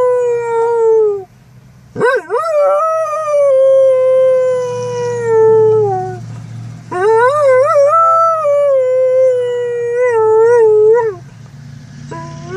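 A dog howling in long, drawn-out howls: one trails off about a second in, then two more follow, the last one wavering in pitch. Under them runs the low steady hum of the truck inside its cab.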